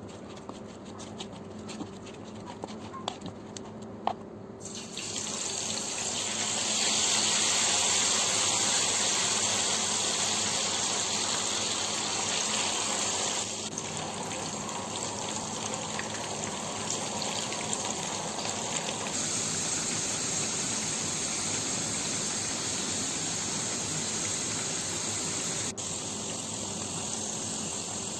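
Water running from a kitchen tap into a sink, starting about four seconds in after a few light clicks, and running on steadily with a change in flow twice.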